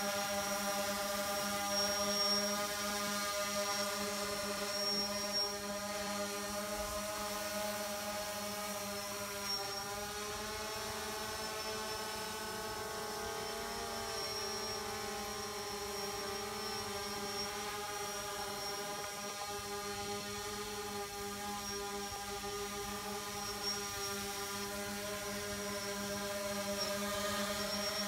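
Quadcopter drone's propellers humming steadily as it hovers, one buzzing tone with many overtones. The pitch wavers slightly about ten to fourteen seconds in.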